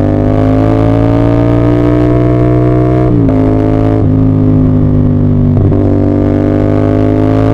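CF Moto 450SR-S parallel-twin engine pulling under throttle, its pitch climbing slowly. The pitch drops sharply about three seconds in, dips briefly again near six seconds, then climbs again.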